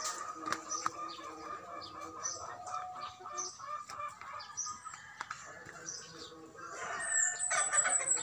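Backyard hens clucking softly while foraging, with short high bird chirps scattered throughout. A louder burst of calling comes about a second before the end.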